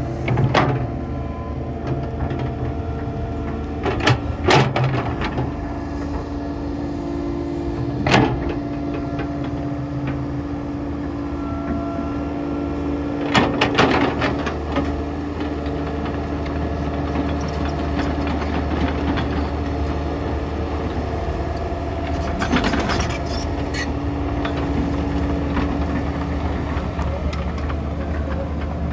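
Kobelco SK120-1 hydraulic excavator at work: its diesel engine runs with a steady hum, broken several times by sharp metallic clanks and knocks.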